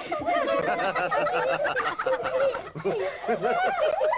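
Several children chattering and giggling at once, their excited voices overlapping without a break.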